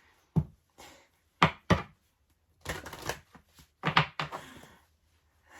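Tarot cards handled on a table: a few sharp taps and knocks, with a short rustle between them.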